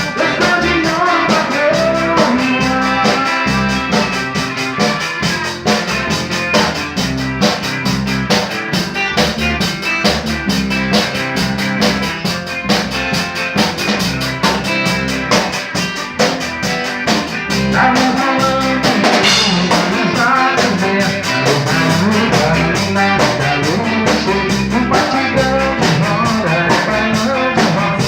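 A band playing a steady-beat song, mostly instrumental, with drum kit and guitar.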